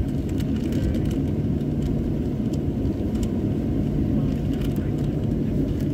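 Cabin noise of a Boeing 737-900 taxiing, heard from a window seat over the wing: a steady low rumble from the engines at idle and the roll over the taxiway, with a constant hum and scattered light rattles in the cabin.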